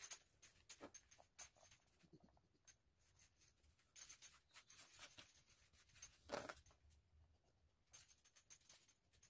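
Very quiet: faint, scattered light clicks and taps, with a somewhat louder knock about six and a half seconds in.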